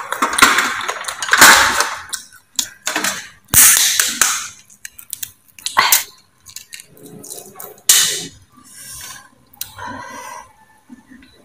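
Close-miked eating sounds: loud, sharp crunching bites in the first few seconds, then clicks and crackles as a boiled egg's shell is cracked and peeled.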